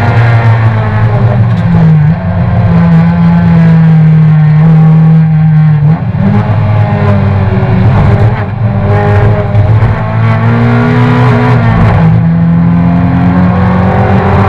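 Toyota race car's engine heard from inside the cockpit, running hard and loud. Its note holds steady for stretches and steps to a new pitch several times, with brief dips as the driver lifts or changes gear.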